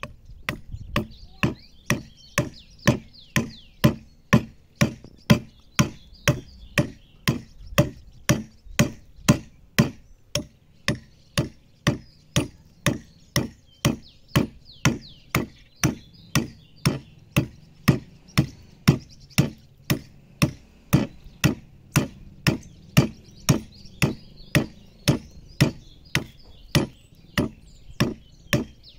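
Hand adze (enxó) chopping into a wooden ox-cart axle blank, short sharp strokes at a steady rate of about two a second as the wood is dressed smooth.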